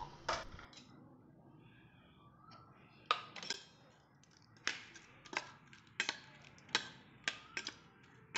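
Slotted steel spoon clinking and scraping against a stainless steel bowl while tossing steamed rice balls in coriander paste. Two knocks at the start, then from about three seconds in a sharp clink every half second or so.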